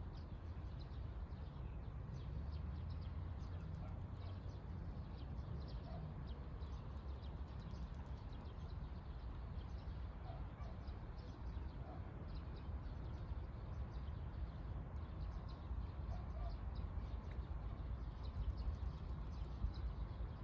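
Wind rumbling on the microphone, with a person's light footsteps on asphalt ticking along and a few faint short chirps now and then.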